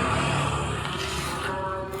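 Music, with steady background noise underneath.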